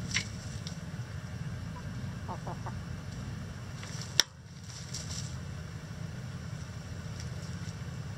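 Chickens pecking and scratching in coop litter, with a few short soft clucks, over a steady low rumble. A single sharp click comes about four seconds in.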